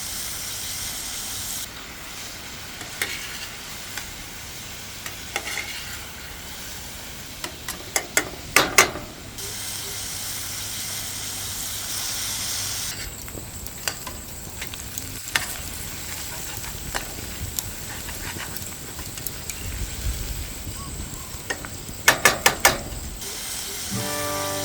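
Food sizzling as it fries, with stirring and clusters of sharp utensil clicks about eight seconds in and again near the end.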